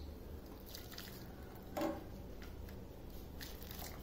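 Rasam being strained onto rice through a wire-mesh sieve, with a spoon pressing the cooked tomato pulp and the liquid running through. Faint, with a few light clicks and one louder short knock about two seconds in.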